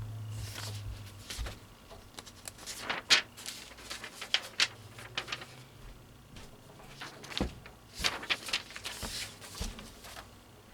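Unpacking handling: irregular rustles, crinkles and sharp clicks and knocks as a box fan is pulled from its box and packaging, the sharpest clicks about three and four and a half seconds in.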